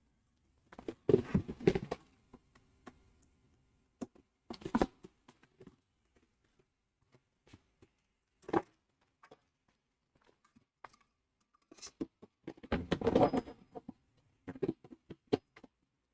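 Scattered clicks, taps and short scraping rustles of hands handling a 3D-printed plastic container and feeding a strand of PETG filament through a hole in it. The longest, loudest rustles come about a second in and again about twelve seconds in.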